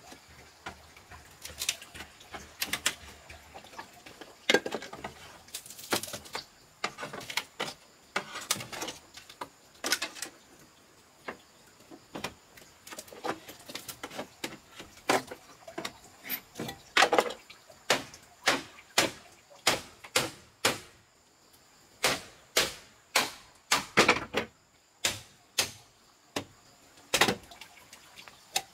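Repeated sharp knocks of hand work, each a short strike with a brief ring. They come irregularly at first, then more steadily at about one or two a second over the second half.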